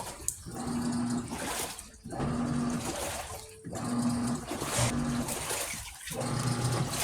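Daewoo washing machine running its wash cycle: the motor hums in strokes of a second or two, broken by short pauses, while the water in the tub sloshes.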